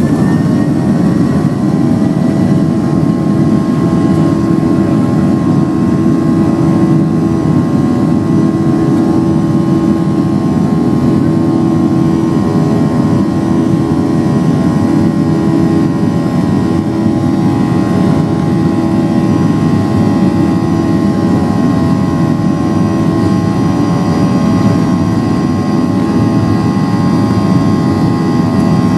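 Airliner's jet engines at takeoff thrust, heard from inside the cabin: a whine that finishes rising about a second in, then a loud, steady rumble with several high whining tones held through the takeoff roll.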